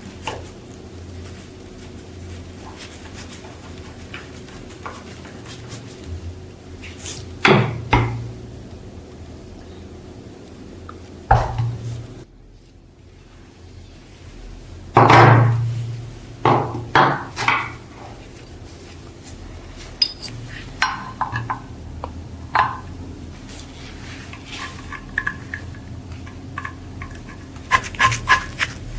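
Metal parts and tools being handled: scattered knocks and clinks, the loudest cluster about halfway through, then lighter clinks with short metallic ringing toward the end.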